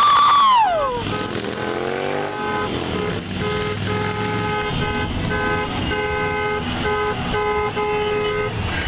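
Car horns honking over steady traffic noise, several horns sounding together in repeated short and long blasts as celebratory honking. About a second in, a loud pitched sound swoops up and falls away.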